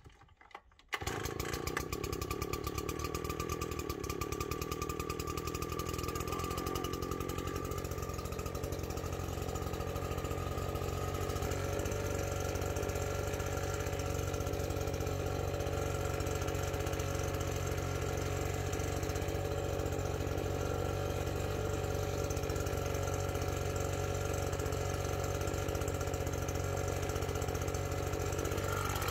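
An engine catches about a second in after a reluctant cold start, then runs steadily at a fast idle, its pitch rising a little over the following several seconds.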